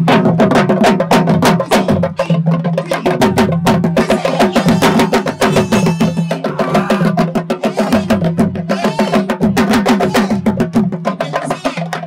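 Senegalese sabar drums played in a fast, dense, unbroken rhythm, sharp stick-and-hand strokes tumbling over one another.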